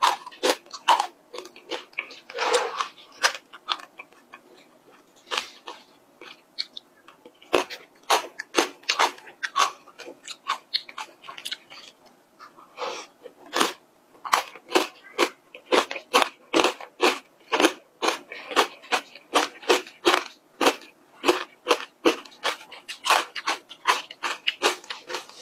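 Close-miked eating of an ice cream cup topped with chocolate pieces: chewing and crunching with wet, sharp mouth clicks, in runs that grow denser in the second half.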